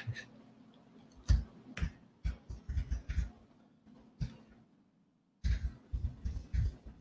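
Typing on a computer keyboard: irregular runs of keystrokes, stopping for about a second past the middle, then starting again.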